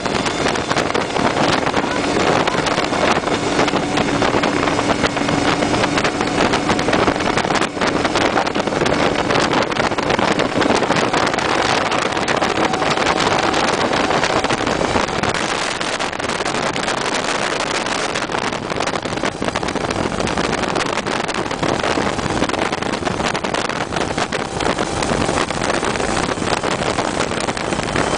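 Motorboat running at speed: a steady, loud rush of engine and water, with wind noise on the microphone.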